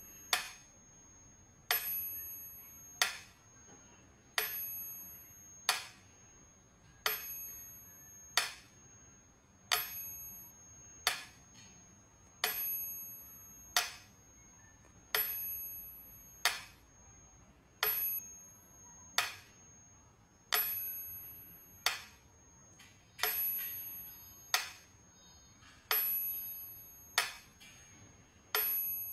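Mechanical pendulum metronome ticking slowly and evenly, about one tick every second and a half. Every second tick is followed by a ringing tone that dies away.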